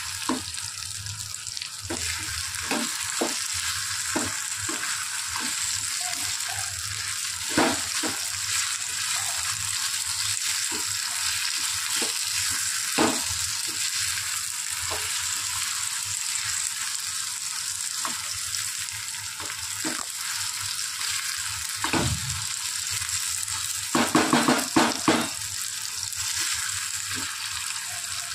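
Vegetables and onions sizzling in hot oil in a metal wok, stirred with a wooden spatula that scrapes and knocks against the pan now and then. Near the end there is a quick run of louder knocks.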